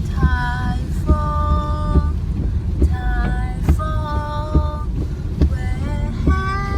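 Music: a melody of held, sung-like notes moving in steps over a steady, heavy bass beat.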